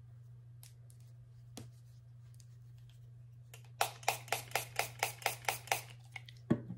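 Alcohol-soaked cotton pad rubbed back and forth on the skin of the stomach to clean the injection site: about a dozen quick scratchy wiping strokes, four or five a second, starting a little past halfway, over a steady low hum.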